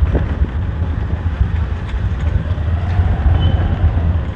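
Wind rushing over the camera microphone and road noise from a moving motor scooter: a steady, loud low rumble that flutters in level.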